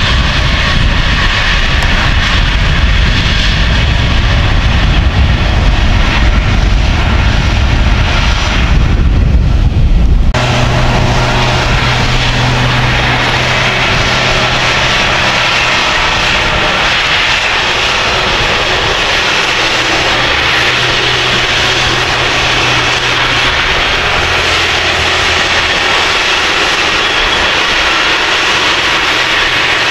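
Case IH Quadtrac 620 track tractor's engine running steadily under load while pulling a cultivator and roller. About ten seconds in the sound changes abruptly from a heavy low rumble to a steadier drone with a clear low hum.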